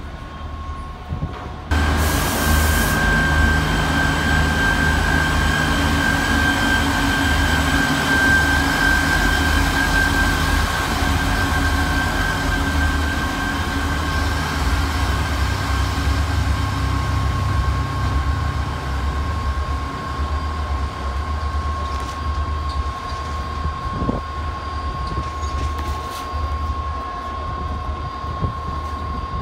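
Irish Rail 29000 class diesel multiple unit running at the platform: a steady low diesel rumble with a high, even whine over it.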